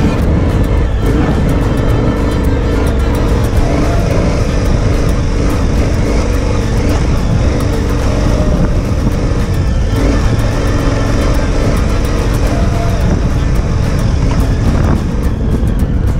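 Adventure motorcycle riding a dirt and gravel track, its engine running steadily under load with heavy wind and road noise on a helmet-mounted microphone.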